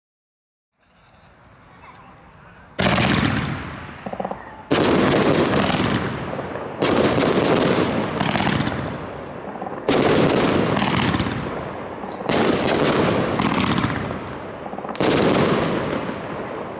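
Funke 'The Wall' firework fan cake firing: about three seconds in the first volley goes off, then a new volley comes every two to three seconds, each several sharp shots in quick succession followed by a decaying rumble of the brocade spider bursts.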